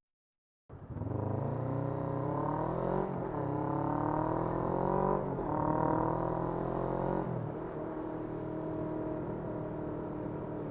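Motorcycle engine accelerating up through the gears: starting about a second in, the pitch climbs, drops at each shift three times, then settles into a steady cruise.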